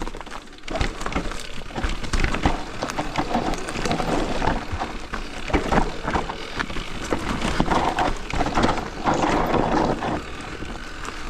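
Simplon Rapcon Pmax Pinion electric mountain bike ridden downhill over rough trail: continuous tyre and trail noise with many quick knocks and clatters as it runs over the bumps.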